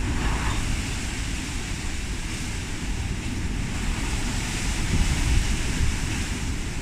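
Typhoon winds blowing hard: a steady rushing hiss over an uneven low rumble of wind buffeting the microphone.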